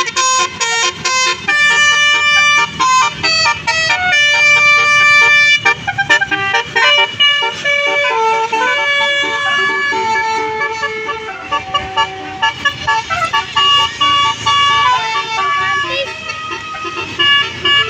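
Indonesian bus 'telolet' Basuri multi-tone horn playing a tune: quick short horn notes at first, then longer held notes stepping up and down in pitch.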